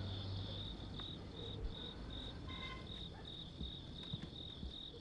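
Crickets chirping in a steady, even pulse, about two chirps a second. A few soft low knocks as wooden chairs are sat in.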